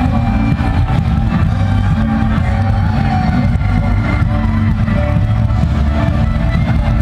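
Amplified live band music from a stage, heavy on bass, with held low bass notes under the melody.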